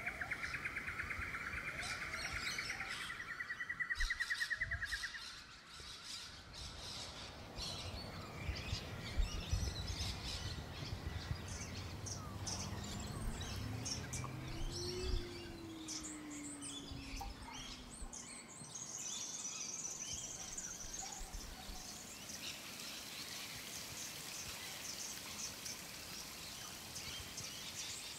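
Faint distant fireworks: a few low thuds and scattered crackles from bursts. Under them runs steady chirping and trilling of summer-night insects.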